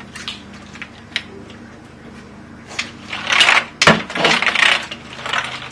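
Paper towels rubbing over a wet keyboard in several wiping strokes, with a sharp knock about four seconds in and a few light clicks before.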